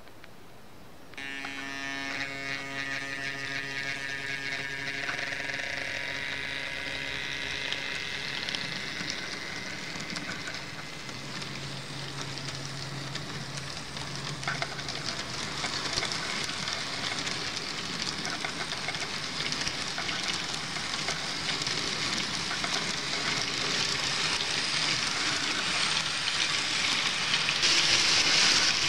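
An N-scale model InterCity train running along the track. About a second in, the locomotive's small electric motor starts a steady hum that fades away over the next several seconds. Under it the wheels roll over the rails with a hissing rattle that grows louder toward the end as the train passes close.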